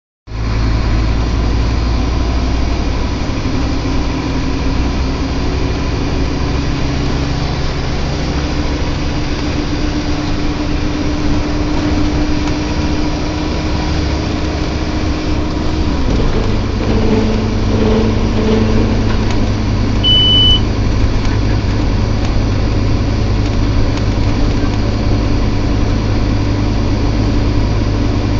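Inside a Scania Omnilink K230UB single-deck bus on the move: steady engine and road noise, with a drawn-out groaning tone that rises slowly and drops away about halfway through, then continues as a lower, wavering note. A short high beep sounds about two-thirds of the way in.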